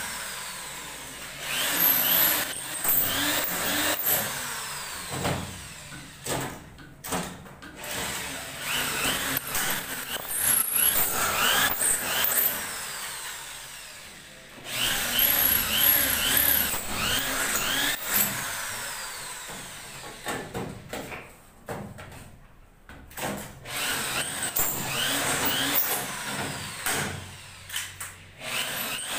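Corded electric drill driving screws into ceiling boards in repeated short runs with pauses between them.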